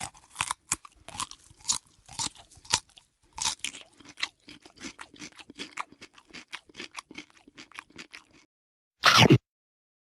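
Crunchy food being chewed: a quick, irregular run of crisp crunches for about eight seconds. After a pause comes one loud, noisy burst lasting about half a second near the end.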